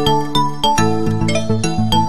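Background music: a bright, light tune of short notes with sharp starts, in a steady rhythm of about three or four notes a second.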